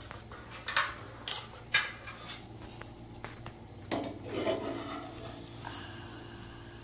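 Spoon clinking against dishes: four sharp clinks in the first couple of seconds, then a longer scraping, rubbing sound about four seconds in.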